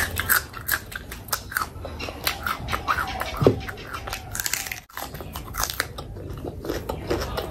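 Close-miked chewing and biting of food, with many quick, wet mouth clicks and smacks and some crunching.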